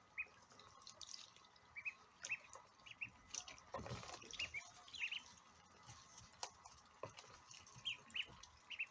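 Ducklings peeping: short, high peeps in small quick runs, with scattered faint clicks and a brief rustle about four seconds in.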